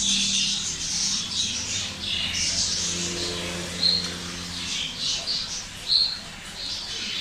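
Small birds chirping and twittering repeatedly, with two short, clear chirps about four and six seconds in.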